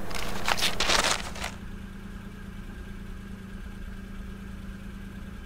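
Brief rustling at the start, then a car's engine idling steadily.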